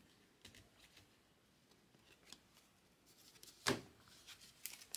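A stack of baseball trading cards being handled, with soft card rustles and clicks. A sharper tap about three-quarters of the way through comes as the stack is set down on the table.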